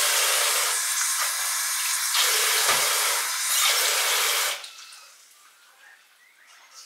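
Bathroom sink tap running with water splashing as a clay face mask is rinsed off; the water stops suddenly about four and a half seconds in.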